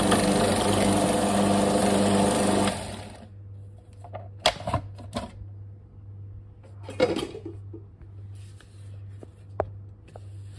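Food processor motor running steadily while grinding roasted sesame seeds into a paste, then stopping abruptly about two and a half seconds in. After that, a few short knocks and clicks from the plastic bowl and lid being handled.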